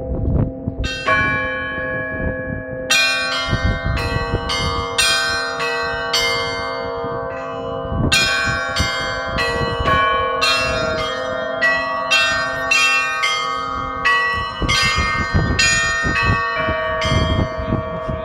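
Russian Orthodox church bells rung by pulling ropes tied to their clappers. Small bells are struck in a quick run, about two strokes a second, over the steady ringing of larger bells.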